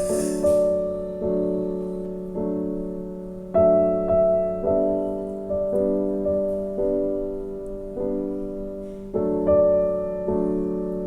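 Background music: slow solo piano, chords struck roughly once a second and each left to ring and fade.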